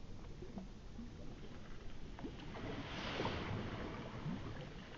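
Water lapping against the hull of a small boat, with scattered small knocks and a brief swell of hissing noise about three seconds in.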